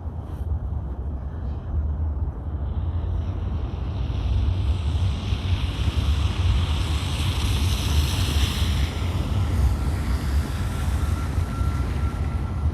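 Wind buffeting the microphone as a steady low rumble, with a broad hiss that swells up through the middle and fades away again.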